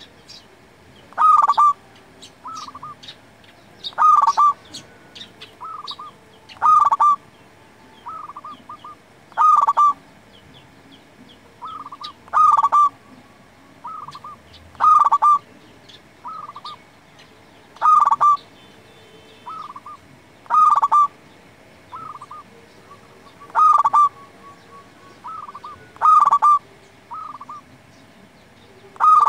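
Zebra dove (perkutut) singing its cooing song over and over, one phrase about every three seconds: a loud coo followed by two or three short, softer coos.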